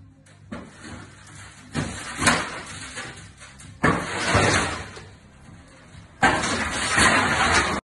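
A shattered glass pane held together by protective film crunches and crackles as it is pushed and folded. There are three loud bursts, the last the longest, cutting off suddenly near the end.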